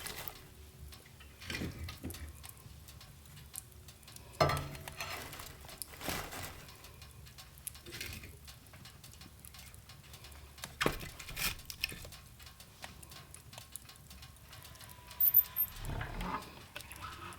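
Dishes, pans and cutlery being handled: scattered clinks and knocks at irregular intervals, the loudest about four and a half seconds in and another cluster near the end.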